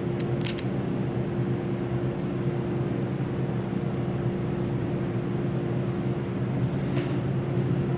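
Steady hum of commercial refrigerators running, with a camera shutter click about half a second in and another near the end.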